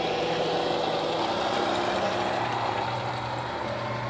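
Radio-controlled 1/14-scale 8x8 military truck running slowly while towing a loaded lowboy trailer: a steady mechanical hum with several tones that drop slightly in pitch about a second in.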